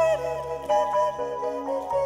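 A woman singing while playing a keyboard, with sustained chords and individual notes under the voice; the voice glides down on a note just after the start.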